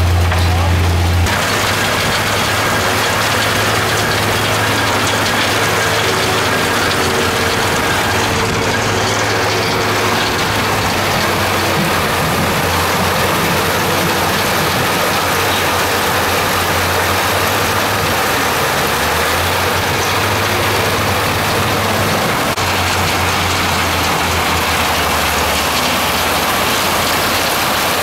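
Gold-mining trommel and sluice running: a steady mechanical rattle from the turning drum and its drive over a constant rush of water and gravel slurry. A deep hum drops away about a second in.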